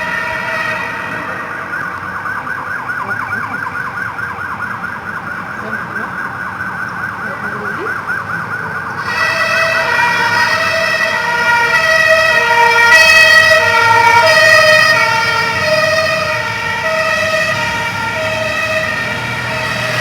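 Fire truck's electronic siren, first sounding a fast warbling yelp, then switching about nine seconds in to a slower two-tone pattern of alternating high and low notes that grows louder for a few seconds.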